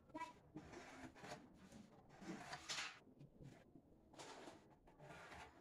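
Faint scraping and rustling of hand work inside a wooden kitchen cabinet while a drawer slide channel is being marked out and fitted, in a handful of short strokes.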